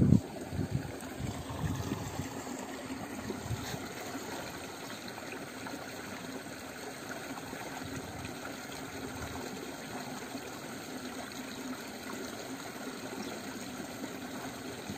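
Steady trickling, flowing water noise with a faint low hum underneath, after a brief thump right at the start.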